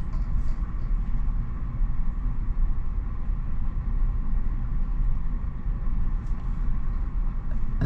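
Steady low rumble aboard a bulk cargo ship underway on a calm sea, its level wavering a little.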